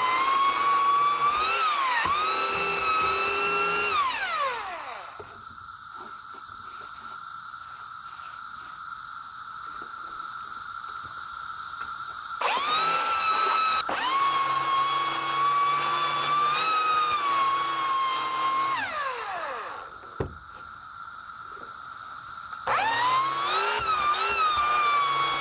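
Electric belt sander sanding weathered wooden deck boards, its motor running with a high whine. Twice it winds down with a falling pitch, leaving a quieter steady whine for several seconds, and then starts up loud again.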